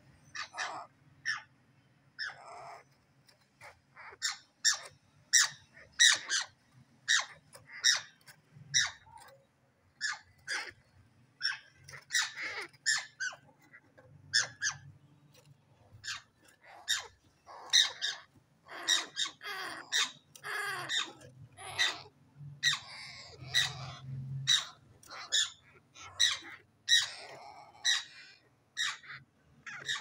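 African grey parrot chicks giving short, raspy squawking calls over and over, one or two a second, coming thicker and faster in the second half.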